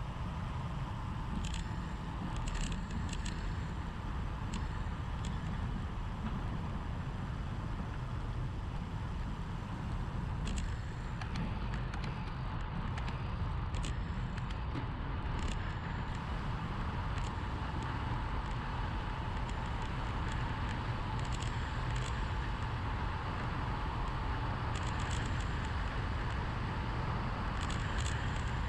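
Wind rushing over the microphone of a bike-mounted action camera on a descent, a steady low rumble mixed with tyre noise on the asphalt. A few short clicks come and go over it.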